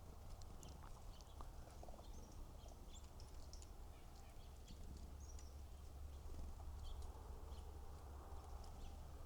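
Faint, scattered short high chirps and calls of black-capped chickadees, with a low steady outdoor rumble underneath.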